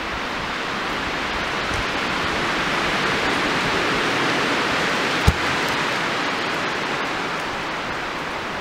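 A steady rushing noise that swells and eases off, with one sharp thump about five seconds in as a log is dropped onto the forest floor.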